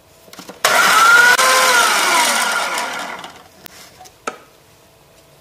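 Electric food processor (chopper) switched on suddenly, its blade chopping onion and green chillies in a short burst. The motor then winds down with a falling whine as it is switched off. A couple of light clicks follow near the end.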